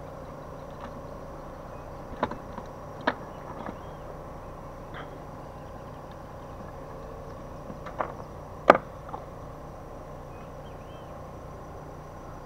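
A few sharp knocks and clicks from fishing gear being handled on a plastic kayak: two a couple of seconds in, then a louder pair past the eighth second, the last the loudest. A steady background hum runs under them.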